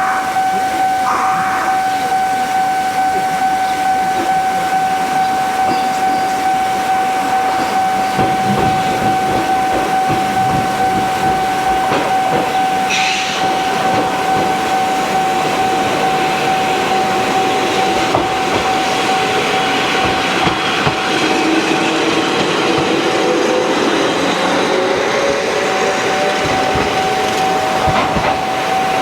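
Japanese level-crossing alarm bell ringing its steady kan-kan tone while a train runs over the crossing, its wheels clattering and a whine rising in pitch in the later part. The bell stops near the end.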